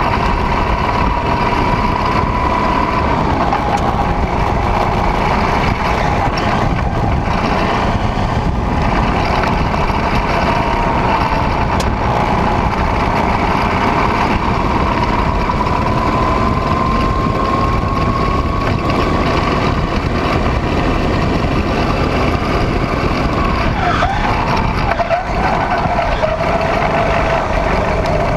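Go-kart engine running hard on track, its note climbing on the straights and dropping sharply as the kart slows for a corner near the end. Wind rushes over the microphone underneath.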